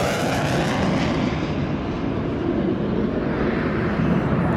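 Panavia Tornado's twin RB199 turbofan engines, a loud, steady jet roar. The hiss at the top dies away over the first second or two, leaving a deep rumble.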